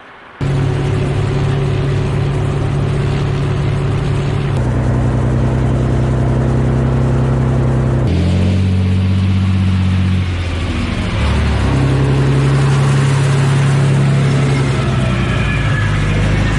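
Diesel engine of a heavy multi-axle mobile missile launcher running steadily with a deep, even hum; the engine note jumps abruptly three times, as if between different shots of the vehicles.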